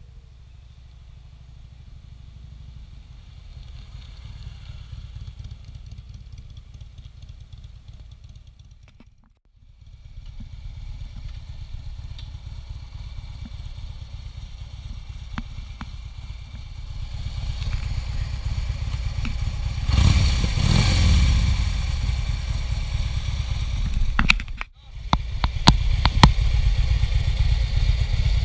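Harley-Davidson Road Glide Ultra's V-twin engine idling, growing louder about halfway through, with one rev about twenty seconds in that rises and falls in pitch. A few sharp clicks sound near the end, and the sound breaks off briefly twice.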